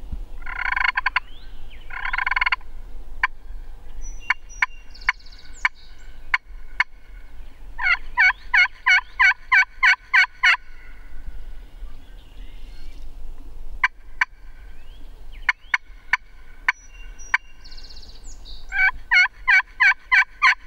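Hand-held turkey call worked by a hunter imitating a hen: two short raspy notes, scattered sharp clucks, and two runs of about nine evenly spaced yelps, one in the middle and one near the end, calling to strike up a gobbler.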